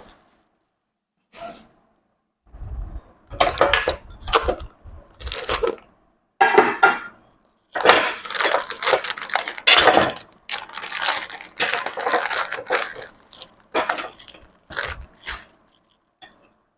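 Unpacking noises from a gas hob's packaging: irregular crunching and crinkling in short bursts with brief pauses between them, plus a few dull knocks a few seconds in.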